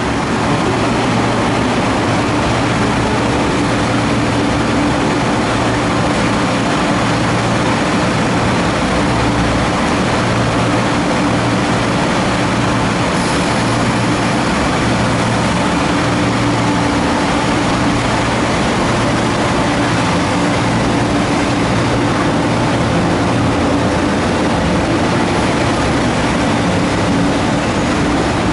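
Hong Kong East Rail MLR electric multiple unit standing at the platform with a steady hum from its onboard equipment, then starting to pull away late on.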